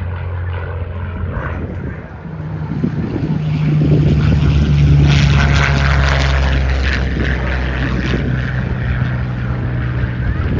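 A P-51 Mustang's V12 piston engine passing by in flight. The drone builds to a peak about five seconds in, drops in pitch as the aircraft goes past, and then slowly fades.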